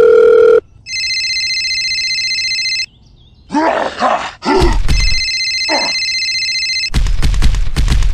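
Sound effects: a steady phone tone cuts off just after the start, then an electronic telephone ring trills for about two seconds. Grunting voice effects follow, the ring sounds again, and a loud rapid clatter comes near the end.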